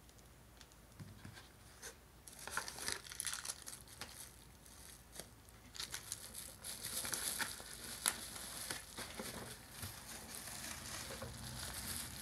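Bubble wrap crinkling and rustling as hands grip a wrapped power supply and lift it from its cardboard box, starting about two seconds in after a few faint clicks and getting busier about six seconds in.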